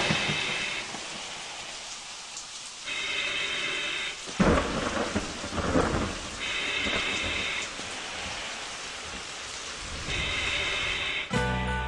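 Thunderstorm: steady rain with a sharp thunder crack about four and a half seconds in, then rumbling and another crack about a second later. A short high buzzing tone comes in for about a second every three and a half seconds, and music starts near the end.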